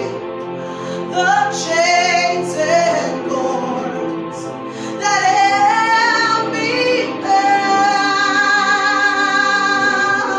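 A woman singing a worship song over sustained instrumental accompaniment. She moves through a short melodic phrase, then holds one long note for the last few seconds.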